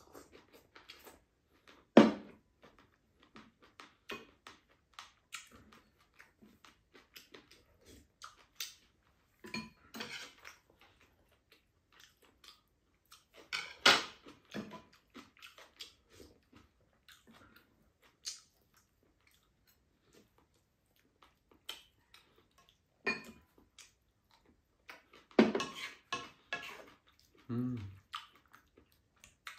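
Chopsticks and a spoon clicking and scraping against ceramic bowls and a frying pan during a meal, with soft chewing in between. Scattered sharp clicks, the loudest about two seconds in and in the middle, with a quick run of clatter near the end.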